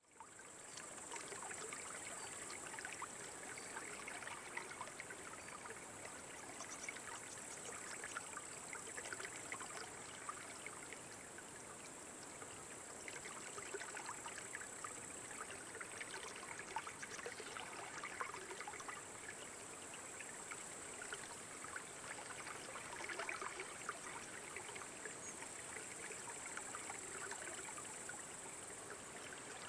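Steady sound of flowing water, a babbling, trickling stream, fading in over the first second.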